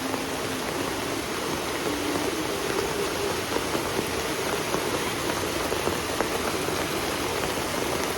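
Heavy rain falling steadily, with scattered single drops striking close by.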